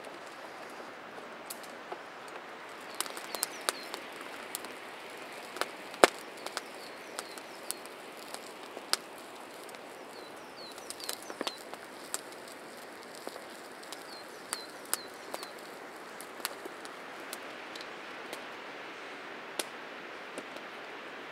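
Open wood fire crackling, with irregular sharp pops over a steady hiss, the loudest pop about six seconds in. A small bird chirps in short high notes a few times.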